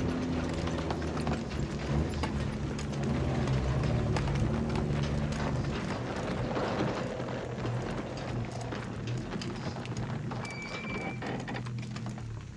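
Modified GMC M211 military cargo truck's engine running slow and low as the truck creeps over rough gravel, with its body and load rattling and knocking and stones crunching under the tyres. A brief high squeal sounds near the end.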